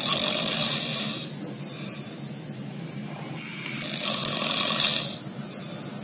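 A sleeping man's nasal snoring: two breathy snores about four seconds apart, the second longer and louder.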